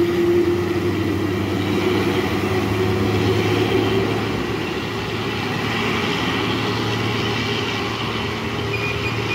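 Diesel truck engines running steadily in slow traffic on a hill, a continuous low hum. A higher engine tone is strong at first and fades over the first few seconds.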